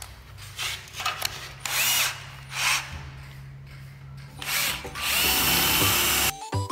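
Electric drill with a masonry bit boring into a cement wall: several short bursts, then a steady run of about a second that cuts off abruptly near the end.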